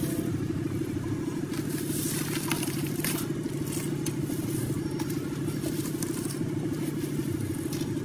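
A steady low mechanical drone with a fast, even pulse, like a small engine running, with a few light clicks and scrapes between about one and a half and three seconds in.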